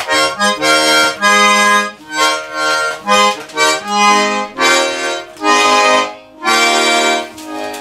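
A small hand-held squeezebox accordion being played in short chordal phrases with a bass line, broken by brief pauses between bellows strokes. It is played roughly, not quite musically right.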